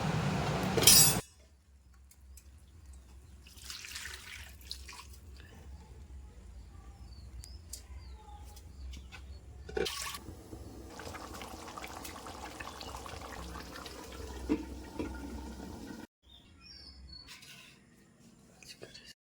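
Goat trotter (paya) curry cooking in a pot: liquid bubbling and sloshing. It is loud for about the first second, ending with a sharp knock, then drops suddenly to a quieter stretch with a few scattered knocks.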